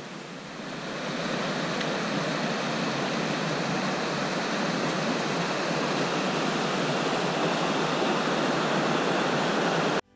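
Steady rushing water, a continuous even hiss and roar that grows louder about a second in and cuts off suddenly near the end.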